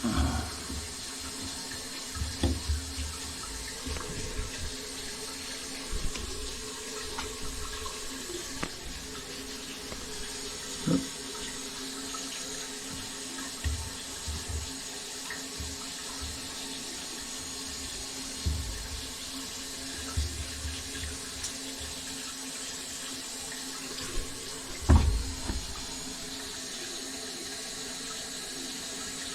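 Tap water running steadily from a newly installed sink faucet, with scattered knocks and bumps; a sharper knock comes near the end.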